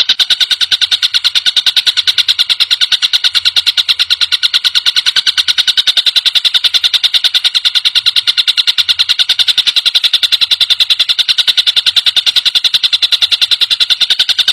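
Tengkek buto (a kingfisher) giving a fast, steady chattering trill of about nine or ten sharp, high notes a second, held without a break. This is the call used as a master recording to tutor captive songbirds.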